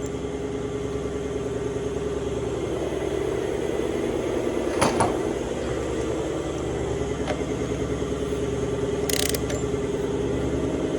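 Air compressor running steadily with a fast, even pulse. A sharp metal knock comes about five seconds in and a short hiss about nine seconds in.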